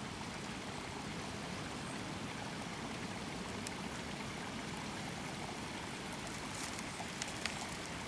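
Small spring-fed stream running steadily over rocks and debris, with a few faint clicks near the end.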